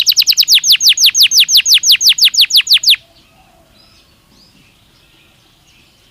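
Belgian canary (domestic canary) singing a fast trill of repeated down-sweeping notes that gradually slows, then cuts off suddenly about halfway through. Only faint, soft chirps remain afterwards.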